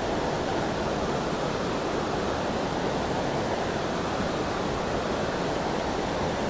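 Steady rush of fast-flowing creek water running over rocks.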